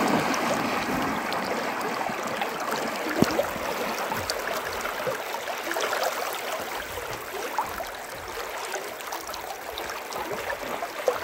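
Fast-flowing muddy floodwater rushing and lapping close by, with splashing from wading through deep water. It is louder at first and eases off.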